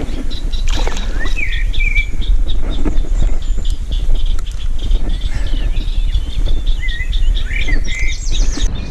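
Songbirds singing: rapid high chirps throughout, with short whistled phrases about a second and a half in and again near the end, over a steady low rumble.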